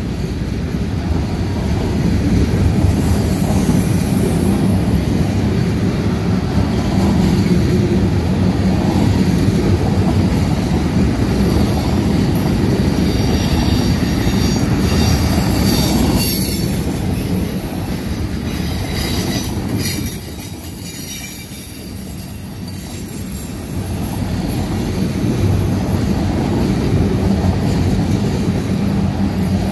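Flatcars loaded with armored vehicles rolling past on a freight train: a steady low rumble of steel wheels on rail. High wheel squeal sounds for several seconds around the middle, and the rumble eases briefly about two-thirds of the way through.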